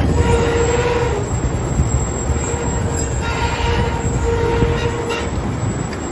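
Truck engine running under load as the hydraulic hoist tips the dump box of straw bales, with a whining tone that comes and goes over the rumble.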